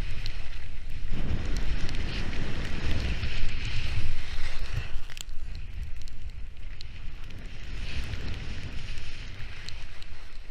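Wind buffeting an action camera's microphone during a ski run, a constant low rumble with a hiss that swells and fades every second or two as the skis carve on the snow.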